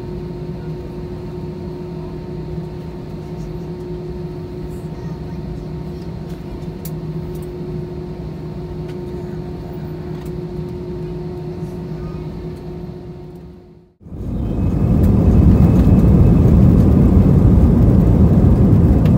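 Jet airliner heard from inside the cabin: a steady engine hum with a few held tones while taxiing at low power. About fourteen seconds in, the sound drops out for a moment, then a much louder, even rush of the jet engines at takeoff thrust comes in as the aircraft starts its takeoff roll.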